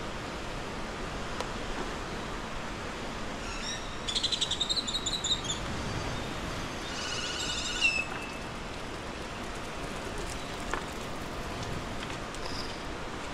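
A bird gives two quick chattering trills, about four seconds in and again near eight seconds, the second ending in a short downward slur, over a steady hiss of rain.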